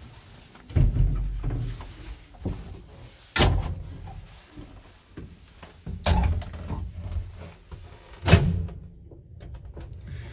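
Doors of an old ZUD passenger lift being worked by hand: four heavy bangs, roughly one every two and a half seconds, each with a low rumble after it, the last the loudest.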